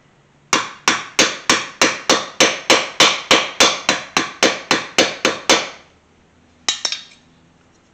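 A small hammer tapping a dented metal body-trim strip against a wooden block to straighten it out: a steady run of about eighteen even strikes, about three or four a second, each ringing briefly. After a short pause come a couple of quick, lighter taps.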